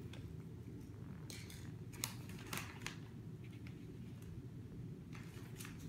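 Calico cat grooming herself, her tongue rasping across her fur in short, faint licks: a cluster of strokes around the middle and a few more near the end.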